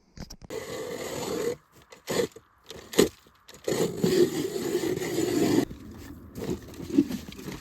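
Ice being cut through by hand over a layer of overflow water, with a few sharp chops among longer stretches of grinding scrape.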